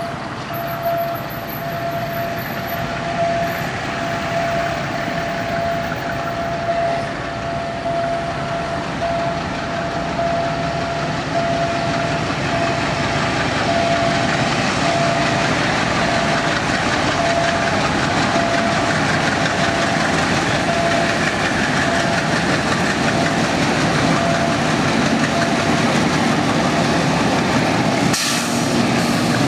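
A diesel-hauled train approaches on the rails, its rumble growing steadily louder, with a steady high ringing tone through most of it. Near the end two diesel locomotives pass close by: their wheels clack over the rail joints and the engines run with a low hum.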